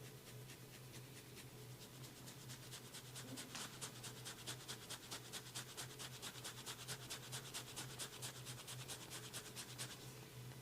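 A massage: hands rubbing rapidly and rhythmically against skin and hair, about six strokes a second, growing stronger from about three seconds in and stopping shortly before the end, over a steady low hum.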